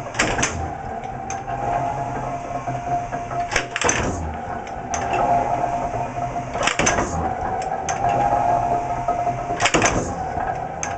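A 65-tonne mechanical power press running with a steady hum, its ram coming down about every three seconds, four times, with a short loud clank each time it strikes and compresses a heavy-duty industrial shock absorber under cyclic load testing.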